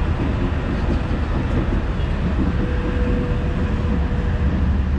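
Tram running along the bridge: a steady rumble of wheels and motors with a thin steady whine in the middle, over street traffic noise.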